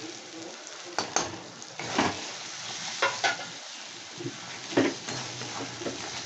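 Onions, ginger-garlic paste and ground spices sizzling in mustard oil in a kadai, stirred with a spatula that scrapes the pan every second or so.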